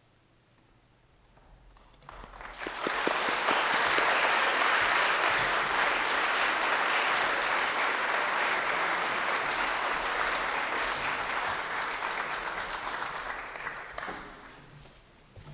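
Audience applauding, starting about two seconds in and dying away near the end.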